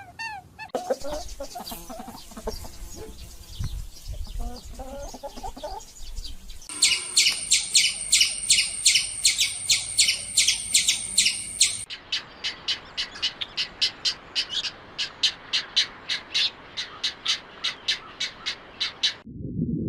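Birds calling in a run of short edited clips, perhaps chickens or other fowl. First a mix of calls, then rapid repeated high chirps at about three to four a second, ending in an abrupt cut.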